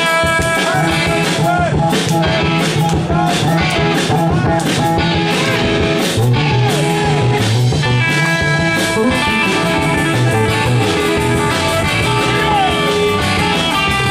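Live rock band playing: electric guitars over a bass line and drums.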